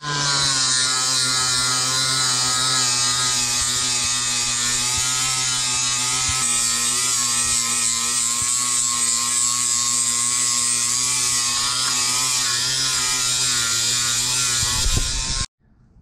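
Makita 18 V cordless angle grinder running steadily with a disc pressed against a steel plough mouldboard, stripping the paint off. It stops abruptly near the end.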